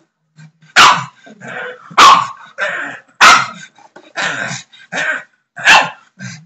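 A pug barks repeatedly in frustration, with four loud sharp barks roughly one to two seconds apart and softer barks and grumbles between them. He is protesting because another dog is lying beside his ball.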